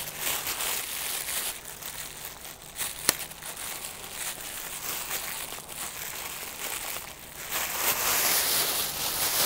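Plastic wrapping crinkling and rustling as it is pulled and worked off a telescope tube. There is a sharp click about three seconds in and louder crinkling near the end.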